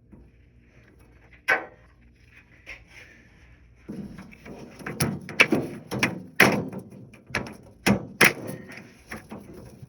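Knocks, clicks and clatter of parts on an old dehumidifier being forced into place by hand: a few single clicks at first, then from about four seconds in a quick run of sharp knocks and thumps.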